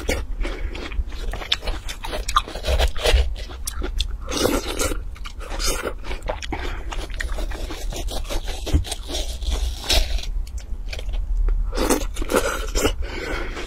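A metal spoon scoops and scrapes the flesh of a halved watermelon, with close-up wet crunching and chewing of the watermelon in the mouth.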